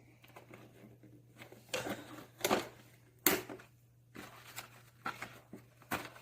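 Packaging being handled and pulled apart, with rustling and a few short, sharp snaps; the loudest comes about three seconds in.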